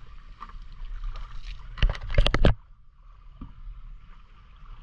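A grouper just freed from a gill net being handled into a bucket of water: a quick run of four loud slaps and splashes about two seconds in, over a steady low rumble.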